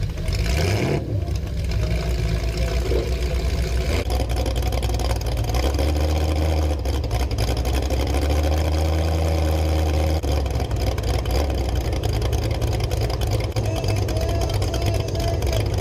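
Demolition derby cars' engines running and revving, with the engine pitch rising and falling.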